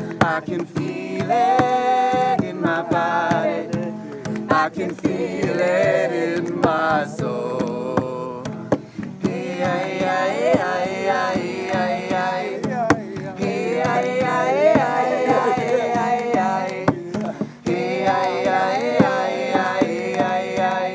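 Acoustic guitar being strummed, with a voice singing along and hands clapping to the beat.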